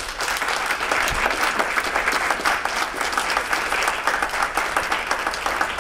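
Audience applauding: many hands clapping together in a dense, steady patter that begins to thin out near the end.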